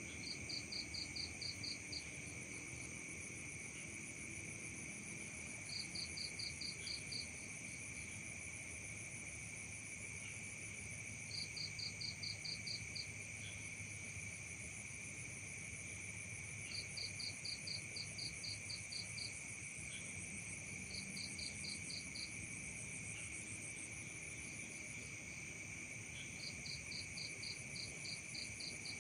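Night chorus of crickets and other insects: several steady high-pitched trills run without a break. Over them, a chirp of about seven quick pulses repeats every five or six seconds.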